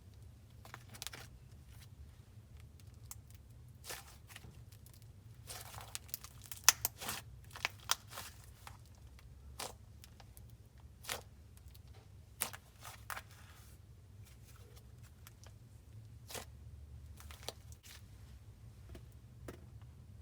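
Hands stretching, squishing and poking a soft clay-based slime: irregular sticky pops and crackles as air pockets burst, busiest in the middle, over a faint low hum.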